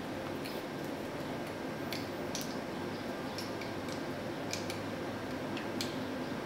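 Faint, scattered light clicks and taps as the metal guide rod and whetstone holder of a Chinese Apex Pro-style knife sharpener are handled and fitted together.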